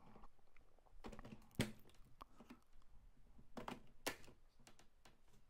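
A few faint, scattered plastic clicks and knocks as the rotary spool holders of a Bambu Lab AMS lite are pushed in by hand onto their mounts.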